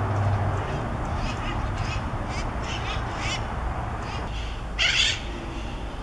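Red-masked parakeets squawking: a run of short, harsh calls, with the loudest, broadest squawk about five seconds in.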